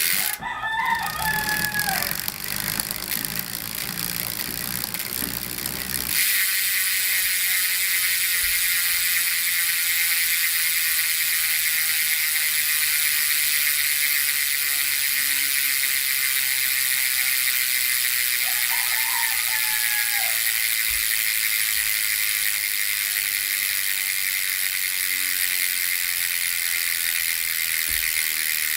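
Koozer XM490 Pro rear bicycle hub freewheeling, its six-pawl freehub giving a continuous fast buzz of clicks that becomes louder and steadier about six seconds in. A rooster crows in the background twice, about a second in and again later.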